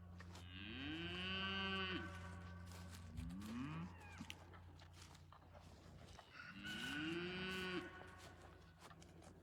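Cattle mooing: two long moos that rise and fall in pitch, about a second in and again around seven seconds in, with a shorter call near three seconds. A steady low hum runs underneath.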